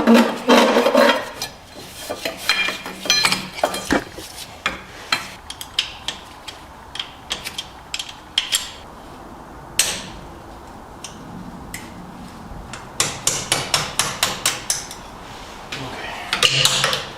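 Metal tools working on a race car's gear selector linkage being dismantled: a string of sharp clicks and taps, with one harder knock near the middle and a fast run of ratchet-like clicks later on.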